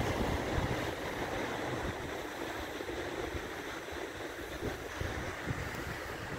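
Low surf washing onto a shingle beach in a steady hiss, with wind buffeting the microphone.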